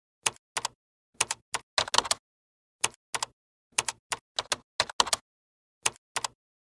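A string of short, sharp clicks and knocks in small quick groups, with silence between them. The sounds come from the parts of a metal kitchen shelf rack being fitted together and from a pot and an appliance being set onto its shelves.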